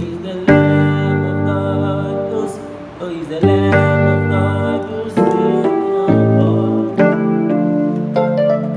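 Keyboard playing sustained gospel chords in the key of F, a new chord struck every one to two seconds. The chords move through 7-3-6 passing-chord movements.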